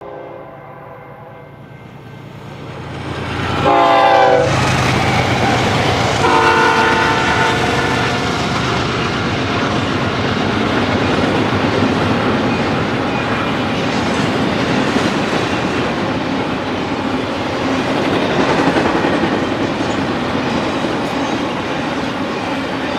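BNSF intermodal train's locomotive horn sounds three blasts; the loudest, about four seconds in, drops in pitch as the locomotives pass. The rumble and clickety-clack of the double-stack container cars rolling by follows.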